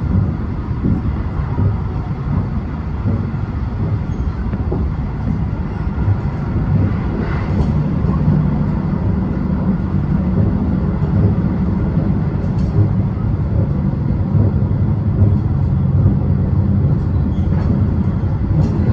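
Rapid Marine Liner electric train running at speed, heard from inside the carriage: a steady rumble of wheels on rail, with a low hum growing stronger about halfway through.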